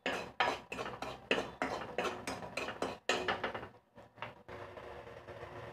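Metal spoon scraping and clinking against a steel kadai as ground moong dal is stirred while it roasts, about three strokes a second. The strokes stop about three and a half seconds in, leaving a faint steady background.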